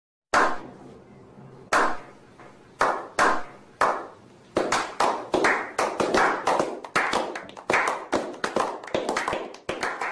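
A small group clapping a slow clap: a few single, widely spaced claps, then from about halfway through faster and overlapping, several a second, building into applause.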